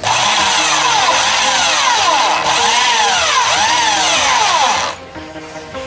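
Corded Bosch electric drill running for about five seconds, its whine rising and falling in pitch as the trigger is eased and squeezed, then stopping abruptly.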